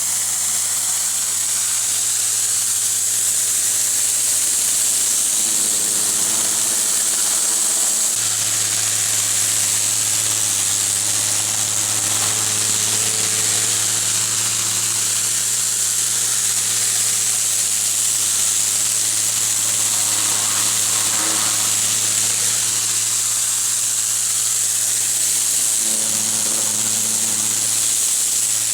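Pressure washer running: a steady, loud hiss of the high-pressure water jet spraying block paving over the low, even hum of its engine.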